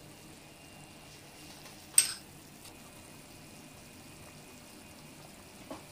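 Chicken pieces simmering in broth in a pan, a low steady bubbling. A single sharp click about two seconds in, and a softer one near the end.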